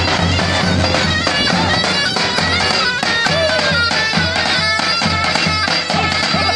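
Davul and zurna playing a halay dance tune: a shrill, reedy zurna melody with sliding notes over regular low davul drum strokes.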